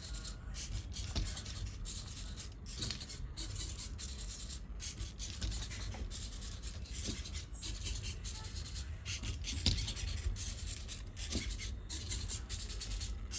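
Short, irregular bursts of whirring and scraping from a small biped robot's hobby servo motors and joints as it moves, over a steady low hum.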